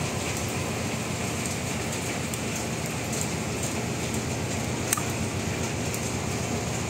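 Rain falling on a ship's wet steel deck, a steady hiss with scattered drop ticks, over the constant low hum of the ship's machinery. A single sharp tick about five seconds in.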